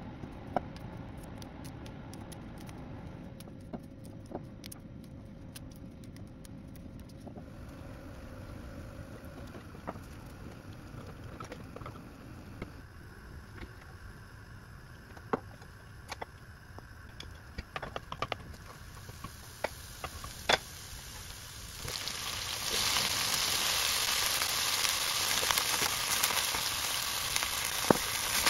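Broccoli florets frying in hot oil in a pan: a loud, even sizzle that starts suddenly about three-quarters of the way through. Before it, kitchen handling with scattered sharp clicks and snips of scissors cutting the florets from the stalk.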